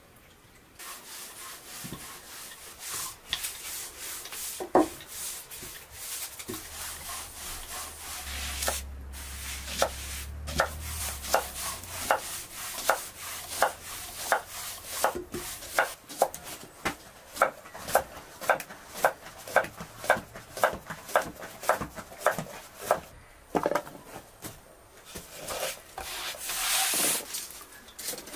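Knife slicing a cucumber on a wooden cutting board: a steady run of crisp chops, about two a second. Near the end comes a louder rustle of leafy greens being handled.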